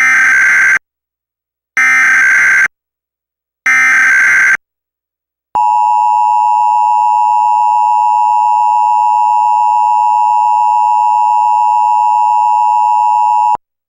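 Emergency Alert System SAME header: three short bursts of data tones about a second apart, followed by the EAS attention signal, a steady two-tone alarm (853 and 960 Hz) held for about eight seconds and cut off abruptly. It is the opening of an EAS National Periodic Test.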